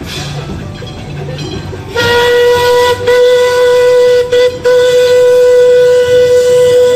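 Whistle of the Missouri, a Western River Railroad steam locomotive, blowing one long steady note starting about two seconds in. It dips briefly once and breaks off for a moment once before sounding on for nearly five seconds.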